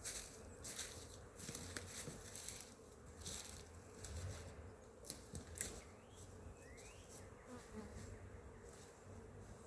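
Honeybees buzzing around the hive, a faint steady hum, with scattered light crackles and rustles.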